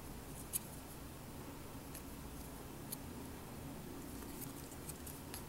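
Faint, scattered clicks of small parts being handled over quiet room tone, the sharpest about half a second in and another near three seconds: memory modules being handled as they are readied for fitting.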